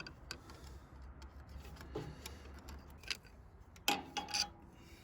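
Light clicks, ticks and scraping of hand work on a metal hose clamp on a radiator hose, with a few sharper clinks about three and four seconds in.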